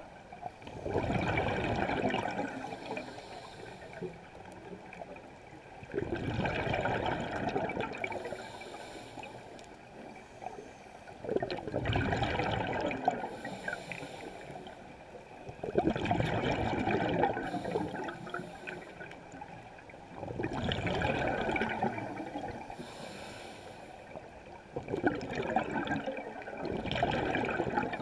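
Scuba diver breathing through a regulator underwater: a rush of exhaled bubbles about every four to five seconds, six breaths in all, with a quieter wash of water between them.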